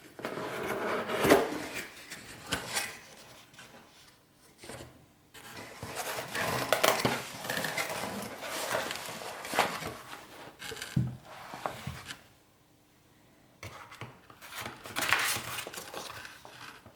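Handling noises from unboxing: packaging rustling in bursts, with sharp clicks and knocks as things are moved, pausing briefly before a last burst near the end.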